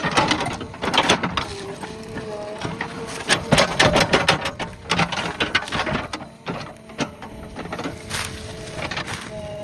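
JCB backhoe loader working through brush: the engine and hydraulics hum steadily under load, over many quick, irregular cracks and snaps of breaking wood. The hum rises a little in pitch near the end.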